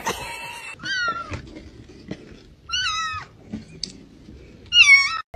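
Kittens meowing from a cardboard box: three high, wavering meows about two seconds apart, the last the loudest.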